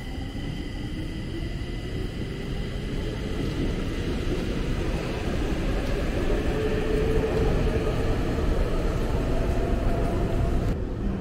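Stockholm metro train pulling out under a cavern station's rock ceiling: a low rumble with the electric motors' whine rising steadily in pitch as it gathers speed, growing louder. The sound changes abruptly near the end.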